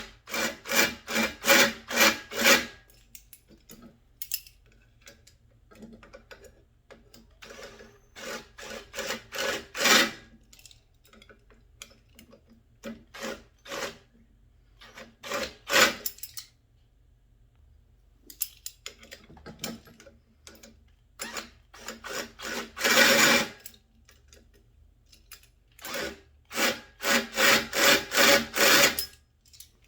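Hand tool working the bolts of the plucker's wheels tight, in bursts of rapid back-and-forth rasping strokes, about four or five a second, with a faint metallic ring and short pauses between bursts.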